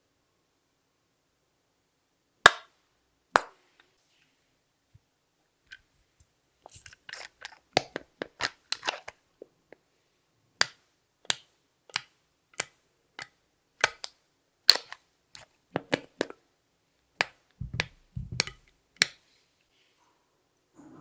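Sharp clicks and pops from hands working slime and makeup. They start after a short quiet spell, bunch into an uneven flurry, then settle into single clicks about every two-thirds of a second, with a couple of soft low thumps near the end.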